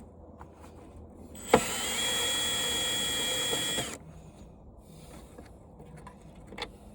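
Power drill running for about two and a half seconds, backing a screw out of an old TV's casing; it starts with a click and its motor whine rises quickly, then holds steady. Faint handling clicks around it.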